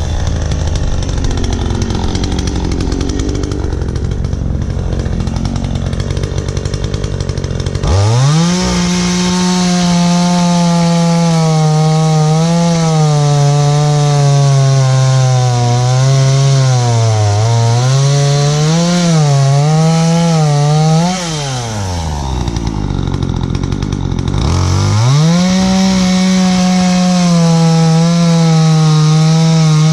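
Gas chainsaw, a two-stroke, cutting chamfers into the ends of log skids. It runs low for the first several seconds, revs to full throttle, then bogs and wavers under load while cutting through the wood. It drops back to idle about two-thirds of the way through, then revs up and cuts again near the end.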